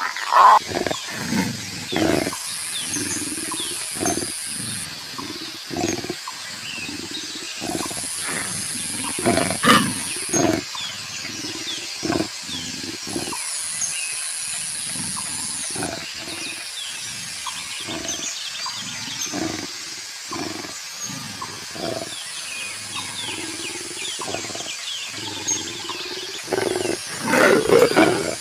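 Leopard growling in a string of short, irregular rasping grunts, with a louder burst near the end.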